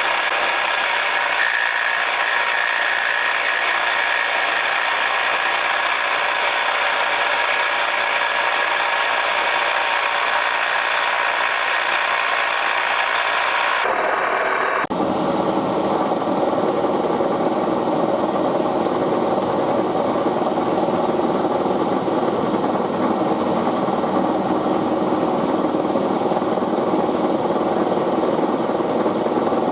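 Milling machine running while an end mill cuts an arc into an aluminium part; a steady mechanical drone that changes abruptly about halfway through to a lower, fuller tone.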